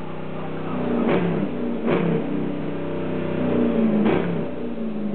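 Dodge Magnum's 5.7-litre Hemi V8 revved in repeated throttle blips, its exhaust note rising and falling, with three sharp cracks along the way.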